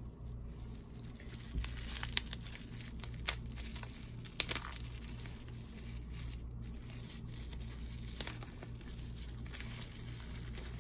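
Packaging crinkling and tearing as the next parcel of parts is opened, with scattered clicks of handling, densest in the first few seconds, over a steady low hum.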